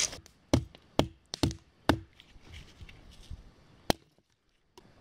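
Fiskars 14-inch hatchet chopping dry deadfall branches: five quick sharp strikes in the first two seconds, several with a short ringing note, then one more about four seconds in.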